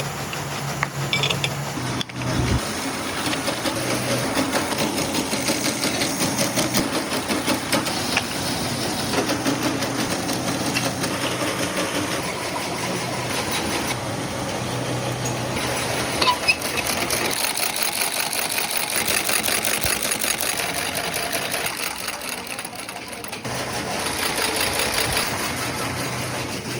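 Brush-making factory machines running with a fast, even mechanical clatter, much like a sewing machine, as bristle tufts are fixed and trimmed. The sound changes abruptly a few times as one machine gives way to another.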